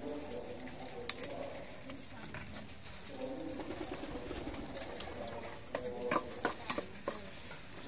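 Metal ladle and spoon clinking and scraping against a stainless steel bowl as food is stirred, a few single clinks early on and then a quick run of five or six near the end.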